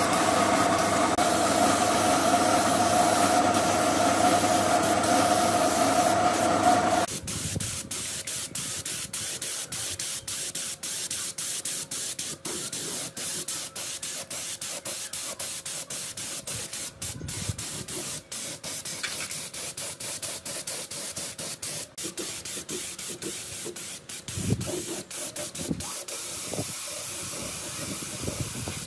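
Gravity-feed spray gun hissing as it sprays paint, with many brief interruptions. For about the first seven seconds a loud steady machine hum runs under the hiss, then stops abruptly.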